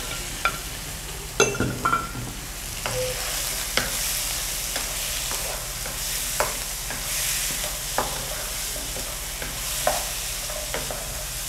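Chicken pieces sizzling in a thick fried tomato paste sauce in a non-stick frying pan, stirred with a wooden spatula that knocks and scrapes against the pan every so often. The sauce is being cooked down until it dries onto the chicken.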